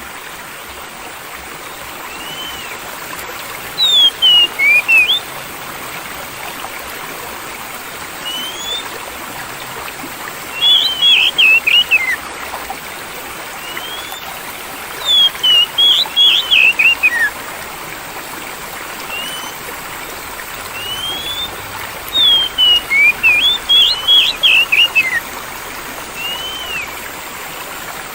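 Oriental magpie-robin (kacer) singing four bursts of rapid, gliding whistled phrases, with single short whistles in between, over a steady rush of flowing water.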